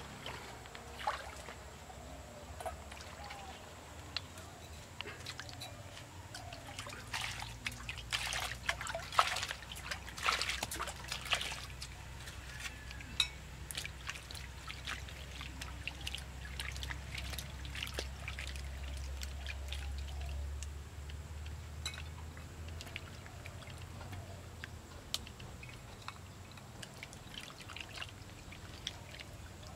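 Hands splashing and sloshing water in an aluminium pot while washing vegetables, over the trickle of a shallow stream. The splashes come thick about seven to twelve seconds in, then thin out to scattered drips and splashes.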